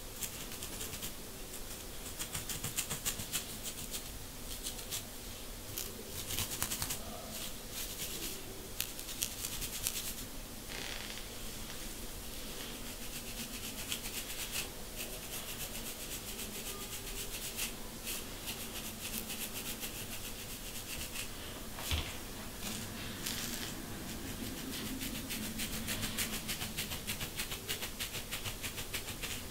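A plastic fine-tooth comb scratching through short, tightly coiled hair against a dry, flaking scalp, in quick repeated scraping strokes. There is one sharper click about three-quarters of the way through.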